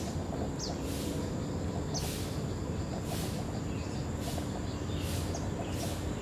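Outdoor ambience of insects and birds: pulses of high-pitched insect buzzing, roughly one a second, with a few short high bird chirps over a steady background noise.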